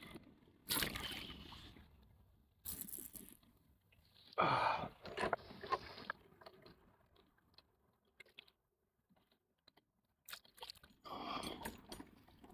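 Several irregular bursts of rubbing and scraping handling noise against the boat's hull, with quiet gaps between.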